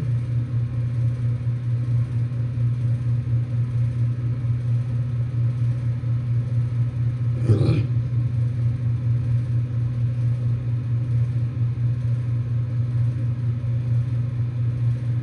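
Outdoor unit of a 2023 Ruud Achiever heat pump running in heating mode, its scroll compressor giving a steady low hum with a rattle, which the owner takes for something loose inside. A brief louder sound cuts in about halfway through.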